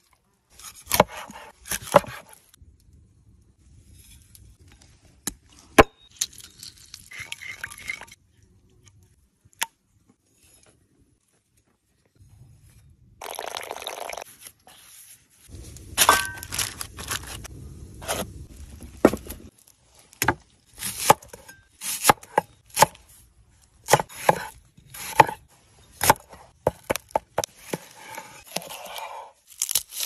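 A run of food-preparation sounds: sharp knife taps and chops on a wooden cutting board, with longer stretches of scraping and tearing between them.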